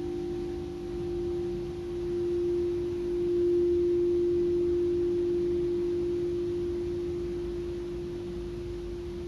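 Singing bowl sounding one steady, pure tone that swells about a third of the way in, then slowly fades with a gentle waver.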